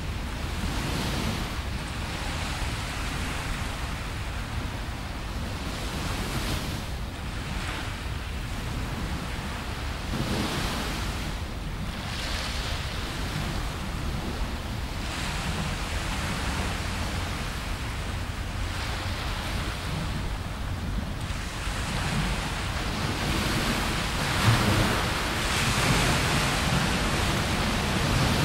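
Small sea waves breaking and washing up a beach, the hiss swelling and fading in slow, irregular surges over a steady low rumble, growing louder toward the end.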